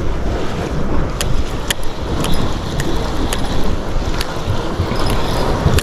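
Spinning fishing reel being handled and cranked, giving scattered sharp clicks over a steady low rumble on the microphone.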